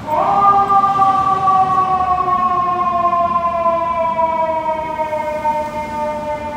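Horn of a 2021 Seagrave Attacker fire engine (FDNY Engine 14) held in one long blast of two notes sounding together. It starts suddenly and sags slightly in pitch as it goes on.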